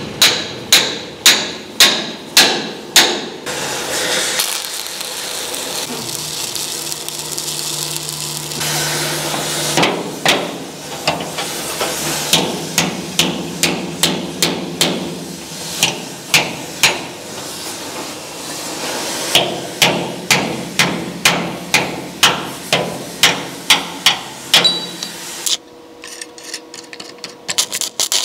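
Hand hammer striking a steel wedge driven into a welded dog clamp, forcing a steel hull plate up into line. The strikes come in runs of about two a second, with a pause of several seconds in between. Near the end they give way to the short crackle of a stick-welding arc tacking the plate.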